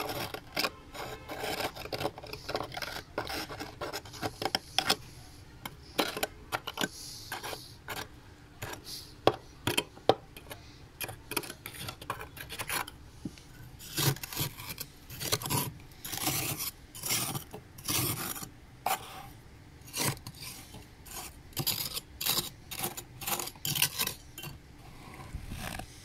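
Flat metal spoon scraping thick, fresh frost off a freezer's walls and floor: a long run of short scraping strokes, irregular and sometimes coming several to a second.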